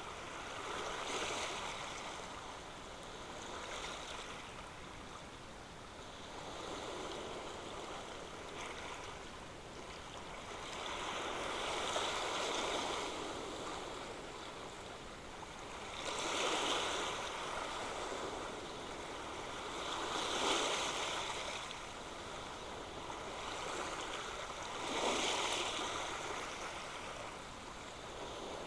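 Ocean surf breaking and washing on the shore, swelling into a fresh surge every three to five seconds, seven times in all.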